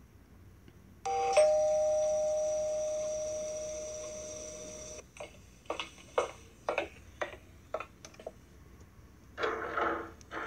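Electronic two-note ding-dong chime: a short higher note, then a lower note that rings and fades slowly over about four seconds. It is followed by a run of light, irregular taps.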